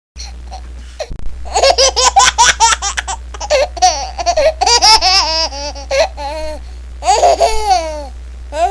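A baby laughing: high-pitched giggles in quick repeated bursts of short pulses, starting about a second in, over a steady low hum.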